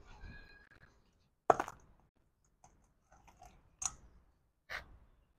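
A few scattered sharp clicks: a double click about a second and a half in, the loudest, then single clicks near the end.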